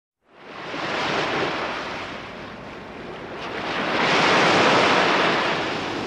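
Sea waves washing in and foaming over a pebble beach, fading in at the start and surging twice, the second surge the louder.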